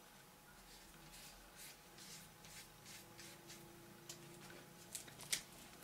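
Faint handling noise: soft rustling and rubbing as hands turn a faux-leather passport cover and lay it on a wooden tabletop. A couple of light, sharp clicks come near the end.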